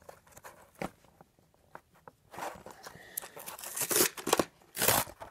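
A cardboard-backed plastic blister pack being pulled apart by hand to free a die-cast toy engine: scattered clicks and crinkles, then louder tearing and rustling rips in the second half.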